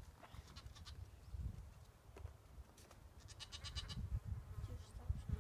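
Desert bighorn sheep lambs bleating. These are the calls of lambs separated from their mother. There are two bleats, a short one just after the start and a longer one about three seconds in.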